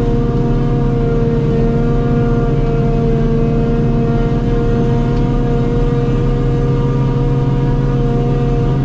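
Forage harvester running under load while chopping grass, a steady whine from the cutterhead and blower over the low drone of the engine, holding the same pitch throughout.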